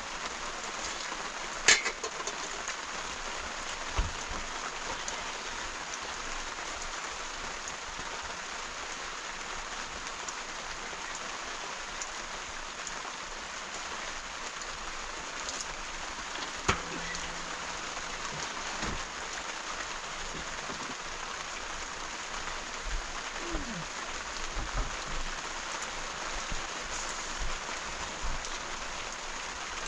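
Steady rain falling, with a few scattered knocks and taps, the sharpest a little under two seconds in.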